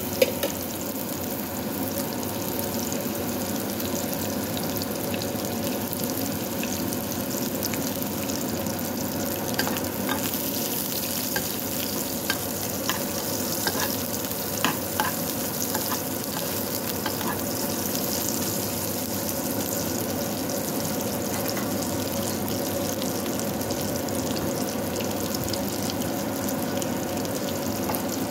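Sliced onions frying in oil in a metal pan, a steady sizzle. A metal spoon clicks and scrapes against the pan now and then as they are stirred, mostly in the middle of the stretch.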